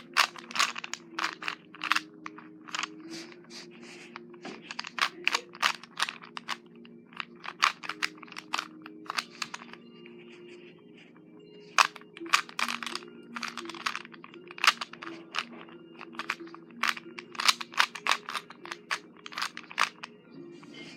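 3x3 Rubik's cube being turned rapidly by hand: irregular bursts of sharp plastic clicks and clacks as the layers snap round while last-layer algorithms are executed, with a brief lull about ten seconds in.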